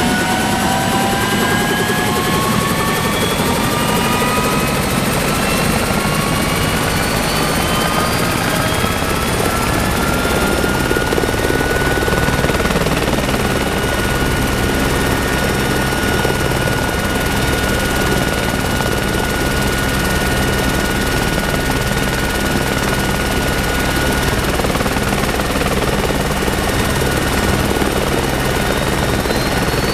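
Turbine engine of a twin-engine helicopter spooling up on the ground with its main rotor turning. The whine rises in pitch for about twelve seconds, then holds steady under a rhythmic low rotor beat, and a new rising whine starts near the end.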